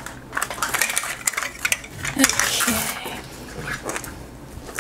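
Small hard plastic pieces clicking and clattering as Mini Brands capsule halves and miniature toy products are handled on a table, with a crinkling rustle of wrapping about two seconds in.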